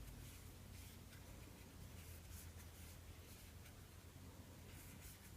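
Near silence with faint, soft rustling and scratching of yarn being worked with a crochet hook.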